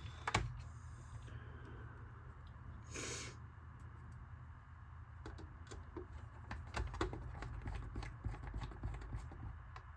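Light scattered clicks and taps of small hard plastic parts and screws being handled while a plastic RC car body is assembled, with a short rustle about three seconds in.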